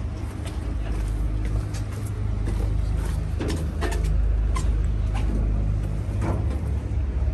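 Moored river tour boat's engine idling with a steady low rumble, growing slightly louder about four seconds in. Over it, scattered footsteps clank on the metal steps and gangway plates.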